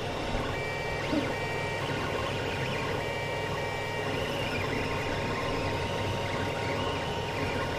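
Creality CR-10 3D printer running a print: the stepper motors whine in short steady tones that start, stop and change pitch as the print head moves, over the steady whir of the hotend cooling fan.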